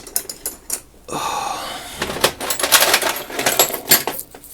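Loose metal hand tools clinking and rattling against each other as they are rummaged through and set down. There is a scraping rattle about a second in, then a quick run of clinks through the second half.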